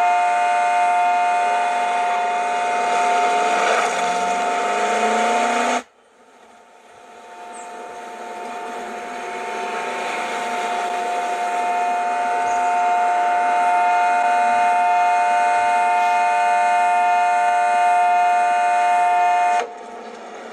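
A long, loud horn blast of several notes sounding together as one steady chord. It cuts off suddenly about six seconds in, swells back up over the next few seconds and holds until it drops away near the end.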